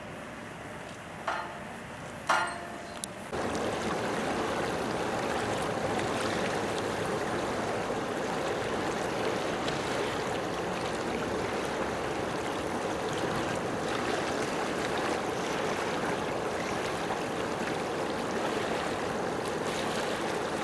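Two short sharp sounds about one and two seconds in, then a steady rush of running water.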